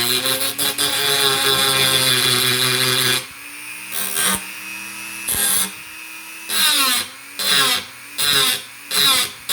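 Small handheld electric power tool running steadily for about three seconds, then cutting in about six short grinding bursts. It is grinding down sharp edges.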